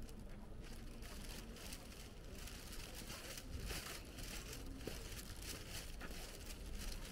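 Faint footsteps, a soft crunch or scuff repeating about once or twice a second, over a quiet hiss.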